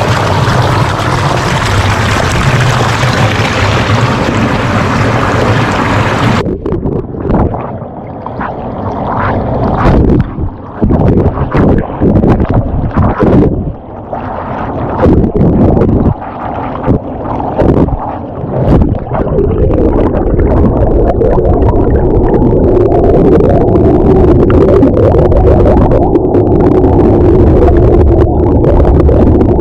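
Rushing river water, until about six seconds in the sound suddenly turns muffled and dull as the microphone goes under the water. Irregular surges of churning, bubbling water follow, settling near the end into a steady low underwater rush.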